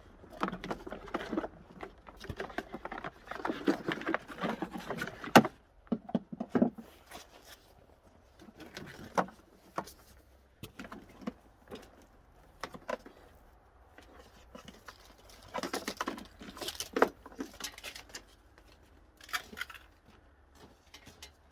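Garden hose and pressure washer fittings being handled and connected: irregular rustling, clicks and knocks, busiest for the first five seconds with a sharp knock about five seconds in, then scattered clicks with another cluster in the second half.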